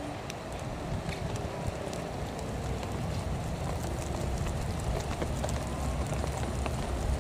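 Steady rain falling, with scattered faint drop ticks, over a low rumble of wind on the microphone.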